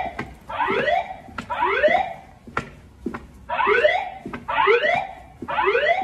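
Evacuation alarm tone from a Notifier voice evacuation system's speakers. A rising sweep tone sounds in the temporal-three pattern: three half-second upward sweeps about a second apart, a pause of about a second and a half, then three more. This is the standard evacuation signal that alternates with the recorded voice message.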